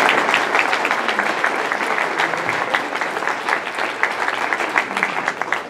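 Audience applauding: a dense clatter of many hands clapping that slowly thins and quietens, with single claps standing out more clearly near the end.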